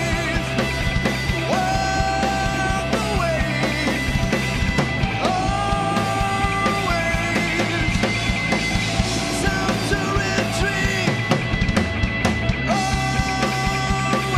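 Rock band playing live in the studio: drum kit, bass and electric guitars at a steady, loud level, with long held notes that bend in pitch over the driving low end.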